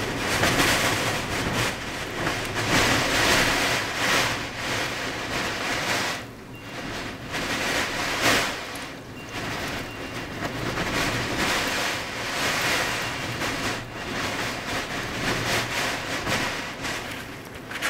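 Blizzard wind blowing in strong gusts that surge and ease every second or two, with brief lulls, buffeting the microphone.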